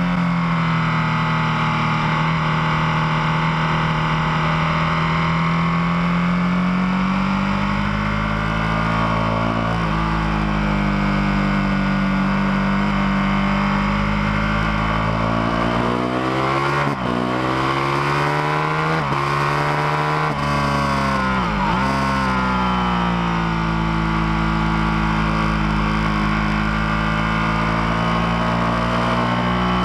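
Ducati Panigale 1299 S's L-twin engine running hard at high revs, heard from on the bike. Its note falls and rises through the corners, with several quick dips and recoveries in pitch about halfway through as gears are changed.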